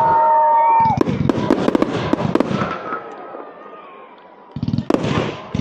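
Fireworks display: rapid volleys of firework bangs and crackling, with a few whistling tones. There is a lull about three seconds in, then another quick volley near the end.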